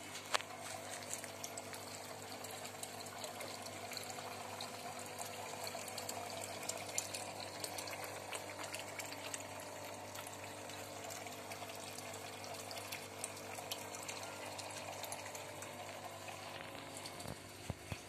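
Water splashing steadily into a small tarpaulin fish pond from a pump's hose outlet, with a faint steady hum beneath it.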